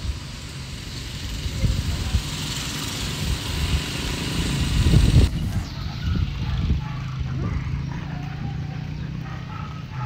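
Motorcycle engine running with wind rushing over the microphone during a ride, growing loudest about halfway. Then there is an abrupt change to a steadier low engine hum.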